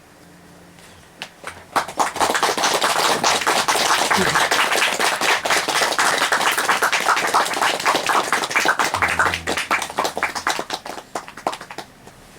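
Audience applauding. A few scattered claps build into steady clapping about two seconds in, then thin out and stop near the end.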